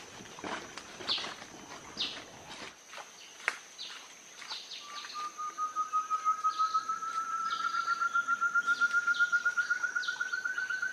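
Recorded quail lure call played from a portable speaker: a rapid train of notes, about five a second, starting about five seconds in and slowly rising in pitch as it grows louder. Before it come a few short falling bird chirps over a steady high-pitched whine.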